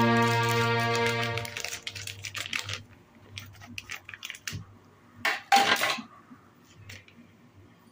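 Background music with held notes fades out over the first few seconds; then light clicks and rustling of a plastic snack packet being snipped open with scissors, with a louder crinkle of the packet about five and a half seconds in.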